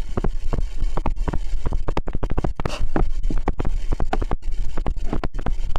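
A stylus writing on a tablet or touchscreen: quick, irregular taps and scratches of the pen tip against the hard screen as letters are handwritten.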